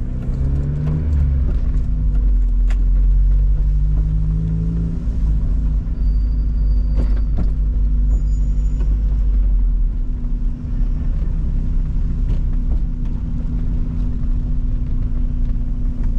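Car engine heard from inside the cabin, creeping forward in a low gear: the engine note rises twice in the first five seconds, then settles into a steady low run. A brief high squeak comes about six seconds in.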